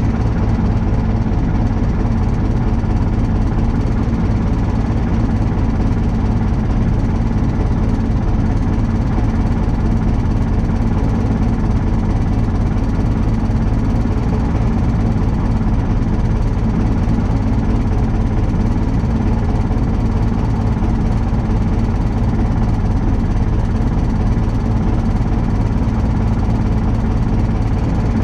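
Universal U650 tractor's four-cylinder diesel engine idling steadily, heard from inside the cab.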